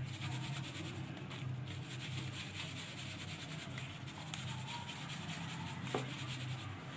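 Flour-coated chicken pieces being shaken in a perforated plastic basket, loose flour rubbing and sifting through the holes with a soft, steady rustle. A faint low hum runs underneath, with a small click about four seconds in and another near six seconds.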